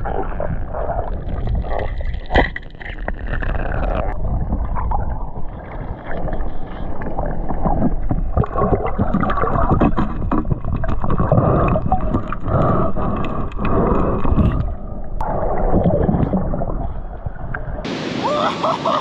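Muffled underwater sound while spearfishing among rocks: water gurgling and sloshing against the camera, with scattered clicks and knocks and one sharp knock about two seconds in. Near the end it cuts abruptly to surf and wind on a beach.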